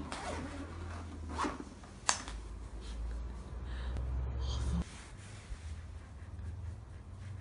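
A fabric pet carrier being handled and opened on a wooden floor: rustling and rubbing, with a few sharp clicks in the first three seconds. A low rumble drops away about five seconds in.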